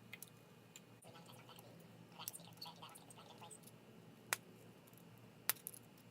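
Light clicks and taps of small repair tools and phone parts being handled, with two sharper clicks about four and five and a half seconds in.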